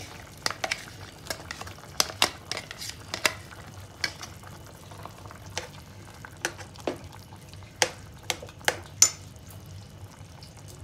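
Steel spoon scraping paste out of a steel mixer jar and stirring it into chicken in an aluminium pot, with irregular sharp clinks of metal on metal, the loudest about nine seconds in. A low steady hum runs underneath.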